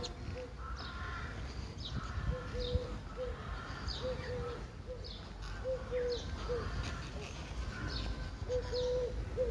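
Birds calling: repeated short mid-pitched notes and quick high downward chirps, over a steady low rumble.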